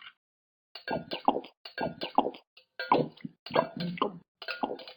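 Snack being eaten: a quick, uneven run of short knocks and clinks against a dish, a few a second.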